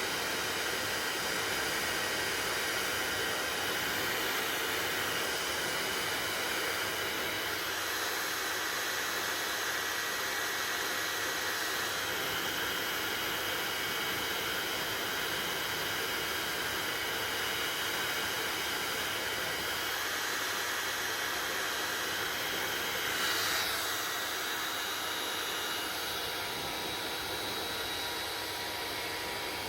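Hair dryer running steadily: an even rush of blown air with a faint high whine, briefly changing about three-quarters of the way through.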